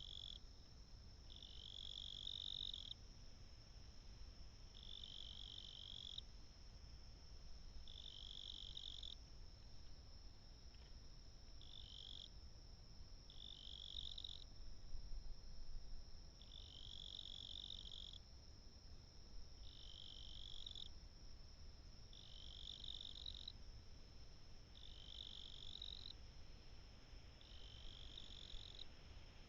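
Faint animal chorus: a calling animal trills in high phrases about a second long, repeated every two seconds or so, over a steady high-pitched drone.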